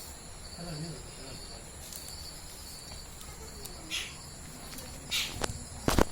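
Crickets and other insects chirping steadily in a constant high-pitched trill. A few short rustling noises come in the second half, and a loud sharp knock comes near the end.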